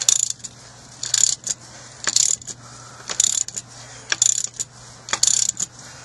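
Ratchet wrench clicking in short strokes about once a second, turning the nut of a homemade harmonic balancer installer to press the balancer onto the crankshaft.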